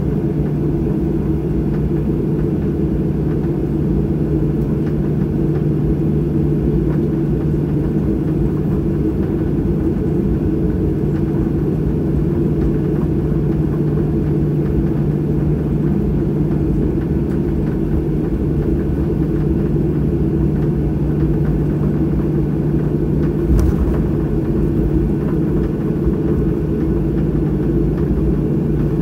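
Steady hum and rumble inside a jet airliner's cabin as it taxis after landing, with a steady low drone underneath. There is a single brief click late on.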